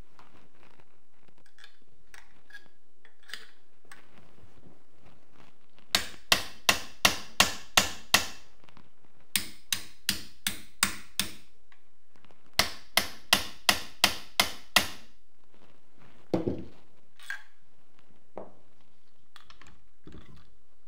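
Hammer blows on an RPK's fixed wooden buttstock, driving it to knock the stock off the rear trunnion. The blows come in three quick runs of six or seven, about three a second, followed by a single heavier thump and a few light knocks. The stock does not come free.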